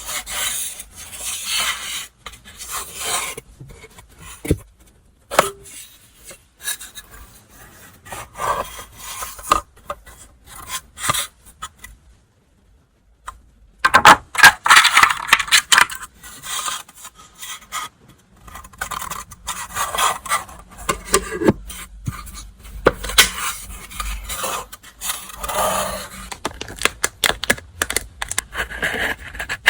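Hands unboxing and handling paper stationery and packaging: crinkling, rubbing and scraping with light taps and clicks, stopping briefly partway through and then resuming more loudly.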